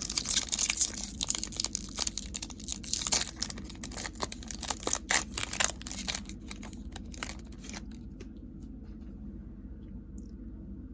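Wrapper of a 2021 Topps Chrome Update baseball card pack being torn open and crinkled by hand, a busy crackling that stops about seven and a half seconds in.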